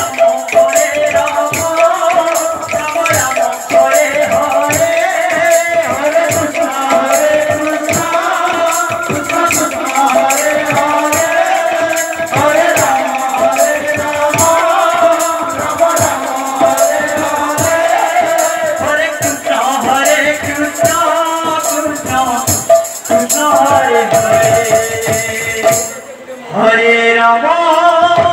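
Odia kirtan music: voices singing over a steady beat of drums with jingling, rattling hand percussion. About 26 s in, the music briefly drops away, then the voices come back in.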